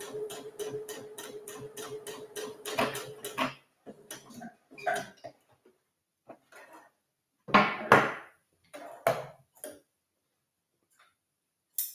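Sewing machine top-stitching: a steady motor hum with a fast needle tick, about five a second, stopping about three and a half seconds in. Then the fabric is pulled free with rustling and a few sharp snips of scissors trimming the threads.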